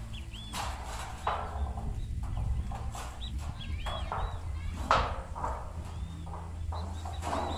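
A corrugated zinc sheet being lifted and stood up, flexing and knocking several times, the loudest knock about five seconds in. Small bird calls chirp repeatedly over a steady low wind rumble.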